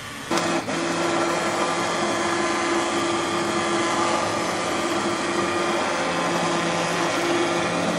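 Immersion blender switched on just after the start and running steadily with a constant motor hum, pureeing a hot cooked peach and strawberry mixture in a pan.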